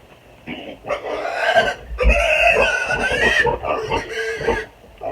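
Piglet squealing loudly in long, high-pitched cries as it is handled and picked up, in about three stretches starting about half a second in and stopping just before the end.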